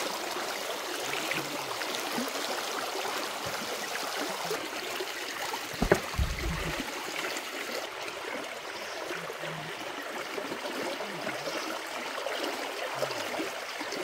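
Water running steadily with a continuous rushing trickle. About six seconds in there is one sharp knock with a low thud.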